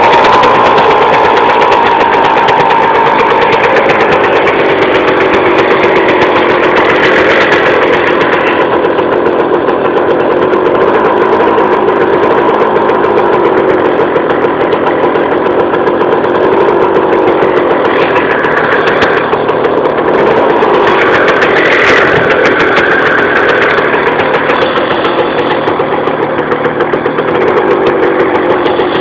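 Jawa 50 Type 20 moped's small single-cylinder two-stroke engine running steadily at idle, with a few brief changes in pitch about two-thirds of the way through.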